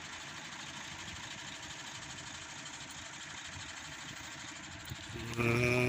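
Steady, even running of an engine in the background, with a fine rapid flutter. Near the end a short drawn-out voice sound cuts in over it.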